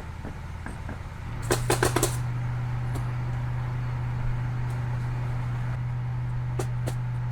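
Roofing work on a shingle roof: a quick run of four sharp nail-gun shots about a second and a half in, then two single shots near the end, over a steady low hum that starts just before the first run.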